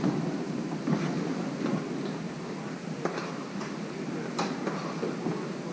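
Rabbit fried rice sizzling in a frying pan on the stove while rice is tipped in from a bowl, with a few light knocks of the bowl and spoon against the pan.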